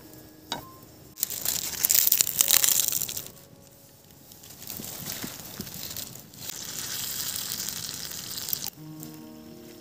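Sardine and tomato curry sizzling in a hot wok over a wood fire: a loud burst of sizzling for about two seconds, then a steadier sizzle that cuts off sharply near the end.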